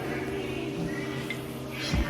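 Quiet background music with steady held tones.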